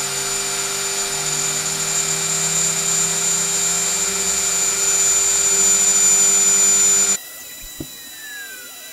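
CNC router's rotary-tool spindle cutting plywood with a small engraving bit: a steady high-pitched whine. It cuts off abruptly about seven seconds in, leaving a faint hum and a single click.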